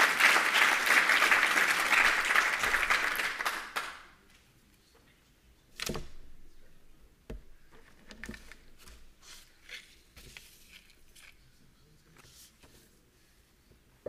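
Audience applauding, dying away about four seconds in. Then scattered quiet knocks and clicks, with one louder thump about six seconds in.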